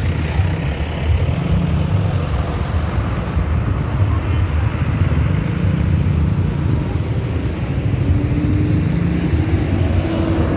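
A motor vehicle's engine running with a steady low rumble. A faint higher whine comes in near the end.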